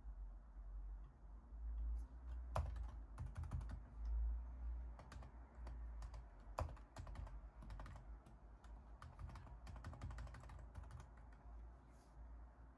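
Typing on a mechanical keyboard: irregular runs of quick key clicks, starting about two and a half seconds in.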